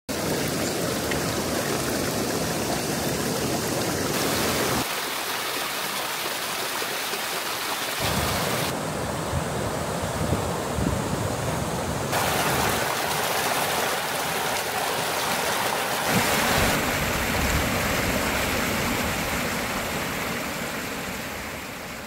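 Mountain stream water rushing: a steady rush that changes abruptly in character every few seconds and fades out near the end.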